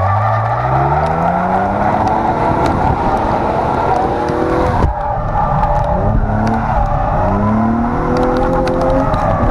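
Nissan 370Z's 3.7-litre V6 heard from inside the cabin, revving up and easing off several times as the car drifts, over steady tyre squeal. A brief sharp dip in the engine sound about halfway through.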